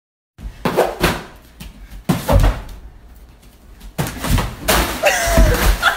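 Repeated bangs and thumps in a small kitchen, in bursts every second or two and loudest near the end: a person jumping up at a high kitchen cabinet, its door banging.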